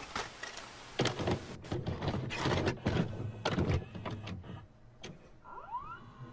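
VHS video recorder taking in a cassette: a run of clicks and clunks from the loading mechanism, then a rising whine near the end as the tape starts to play.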